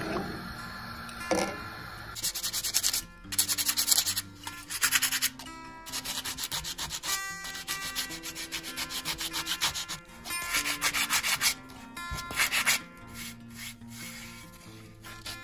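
Sandpaper rubbing back and forth over a handmade mushroom figure that has dried but not fully. It comes in repeated runs of quick strokes, starting about two seconds in, over quiet background music.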